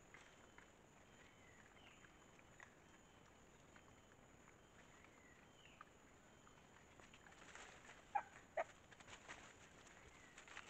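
A herd of white-lipped peccaries foraging in dry leaf litter: faint scattered rustles and clicks, growing busier near the end, with two short sharp squeals in quick succession about eight seconds in. Faint high descending chirps sound now and then behind them.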